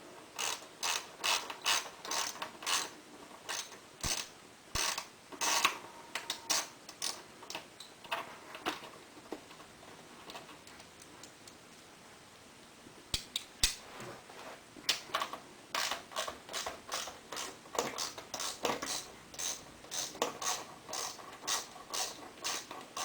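Ratchet wrench clicking in quick strokes as 12 mm bolts are backed out of a quad's swing arm skid plate, with a lull of a few seconds near the middle.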